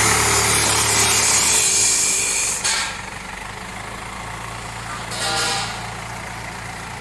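Cat 424B backhoe loader's diesel engine running, under a loud hiss for the first three seconds or so, then settling to a steady idle. There is a short higher-pitched burst about five seconds in.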